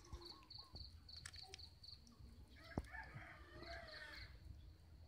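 A rooster crowing faintly, one wavering crow starting about two and a half seconds in, over a high chirping that repeats about four times a second and a single sharp click.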